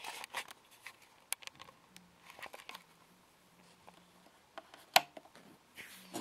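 Scattered light clicks and taps of handling, with one sharp click about five seconds in, over a faint low hum.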